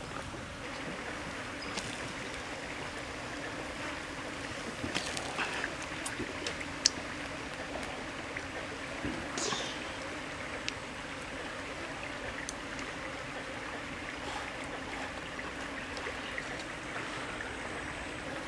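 Steady rush of a flowing stream, with a few scattered sharp clicks.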